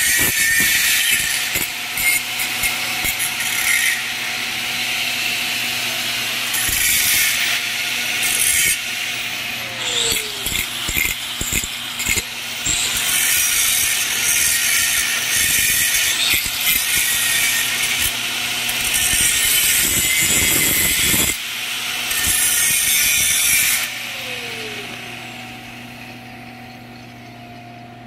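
Stick-welding arc crackling and hissing steadily as a 7018 electrode is run around a pipe-to-flange joint, with a few short breaks where the arc sputters. The arc stops about four seconds before the end and the crackle dies away.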